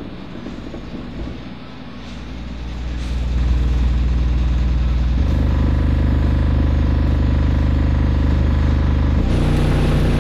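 Dayton Audio 18-inch Ultimax subwoofer in a 4-cubic-foot MDF cabinet, driven by an SPA1200DSP amplifier, playing deep bass. It builds up over the first three seconds to a loud, steady low drone, then holds sustained low notes that change pitch twice.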